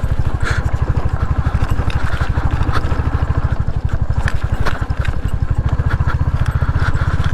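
Royal Enfield Hunter 350's single-cylinder engine running at low revs with a fast, even pulse, the motorcycle ridden over a rough dirt track. A few short sharp knocks come through now and then.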